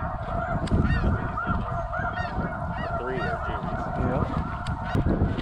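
Snow goose calls: many short, high, yelping honks, overlapping and repeating rapidly, over a steady low rumble of wind on the microphone.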